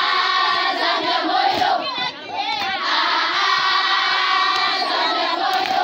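A large group of schoolchildren singing together in unison, holding long notes, with a brief break about two seconds in before the singing picks up again.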